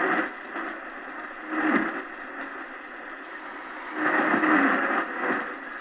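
Shortwave static and hiss from an XHDATA D-901 portable radio tuned to a weak station near 15655 kHz. The noise swells up three times, with only traces of a faint signal under it: a tricky station to pick up.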